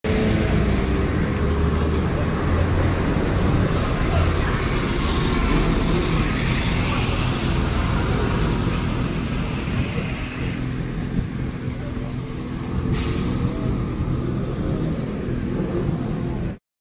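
City street traffic: cars and a bus passing with engine and tyre noise, steady and fairly loud with a deep rumble underneath. A short hiss comes about three-quarters of the way through.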